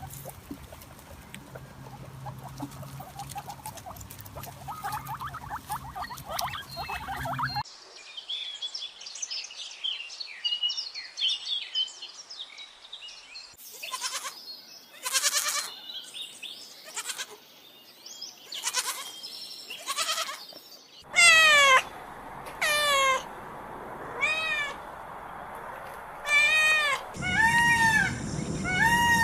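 A string of different animal calls: high twittering in the first half, then short harsh calls, then loud bleats from about two-thirds of the way in. Each bleat rises and falls in pitch, and they come faster near the end.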